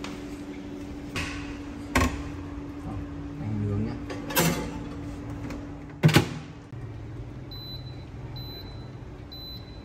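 Dish and oven-door clatter from a Kangaroo countertop air fryer oven, ending in one loud clack about six seconds in as its glass door is shut. Near the end its touch control panel gives three short high beeps as the temperature and time are set.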